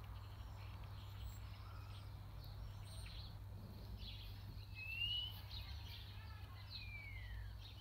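Small birds chirping in scattered short notes, with a clear rising whistle about five seconds in and a falling whistle near the end, over a steady low rumble.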